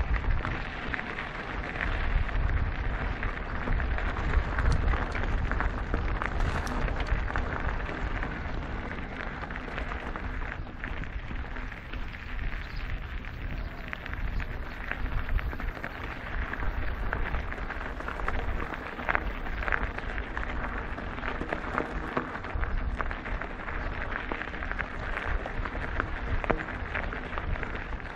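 Mountain bike tyres crackling over a rough gravel trail, with wind buffeting the camera microphone.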